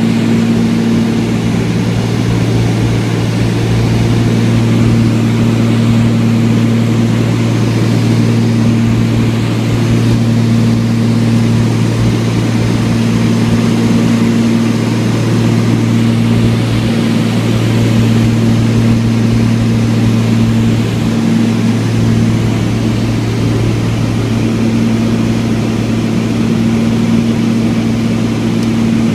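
Light propeller airplane's engine heard inside the cabin in cruise: a steady drone with a low hum and no change in power.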